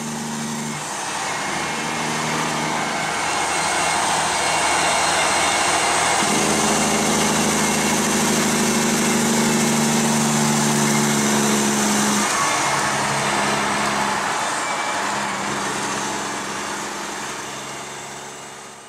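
Freightliner Columbia semi-truck's engine brake (Jake brake) working while the truck drives, a loud, rough rattling exhaust note whose engine pitch shifts several times. It swells in over the first few seconds and fades out at the end.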